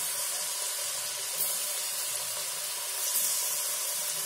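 Raw potato sticks deep-frying in hot oil in a kadhai: a steady bubbling sizzle as the freshly added sticks give off their moisture, briefly a little louder twice.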